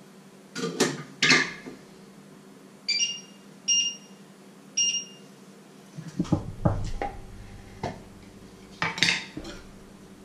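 Kitchen handling sounds: a small ceramic plate clinks down twice about a second in, three short electronic beeps follow, then a jar is knocked, its lid screwed off and a knife clinks against it.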